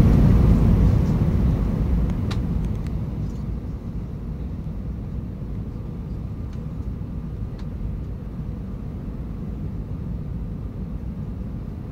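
Airliner cabin noise during the descent to land: a steady low rumble of engines and rushing air. It is loudest at first and eases over the first few seconds before settling.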